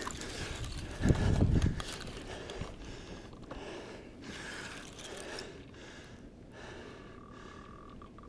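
Spinning fishing reel being worked by hand, its gears and anti-reverse clicking as the handle turns. A brief low rumble on the microphone about a second in is the loudest moment.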